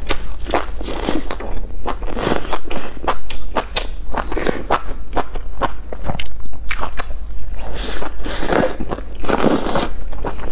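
A person biting and chewing a stuffed flatbread sandwich: a steady run of short clicky mouth sounds, with two longer, louder bursts near the end.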